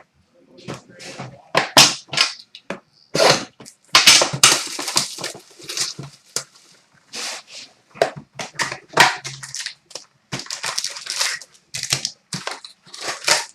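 Trading card packaging being opened by hand: wrappers crinkling and tearing, with cardboard and cards rustling in a run of irregular crackling bursts.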